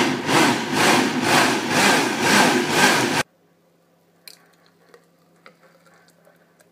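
Vitamix blender running at full speed on a thick smoothie of bananas and frozen fruit, its sound swelling and fading about twice a second, then switched off and stopping abruptly about three seconds in. A few faint clicks follow.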